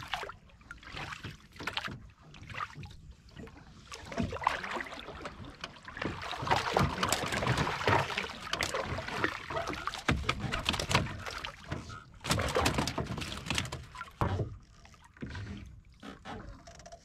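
Irregular rustling, rubbing and knocking as a fishing net and the fish caught in it are handled in a small wooden boat, busiest through the middle.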